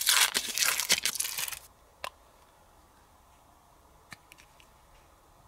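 Crinkling and tearing of candy-toy packaging for about a second and a half, then a single sharp click and a few faint ticks.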